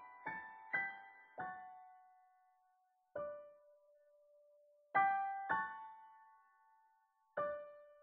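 Solo piano playing a slow, quiet passage: a few notes in the first second and a half, then a single note about three seconds in and chords about five and seven seconds in, each left to ring and fade away.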